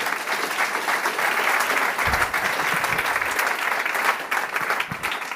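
Audience applauding: a dense, steady patter of many hands clapping.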